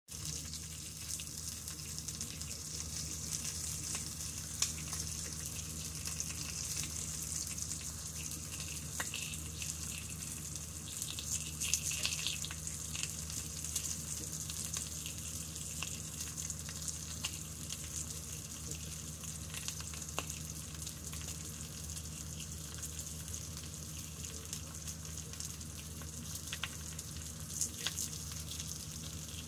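Bacon rashers frying in hot fat in a pan: a steady sizzle with scattered small pops and crackles.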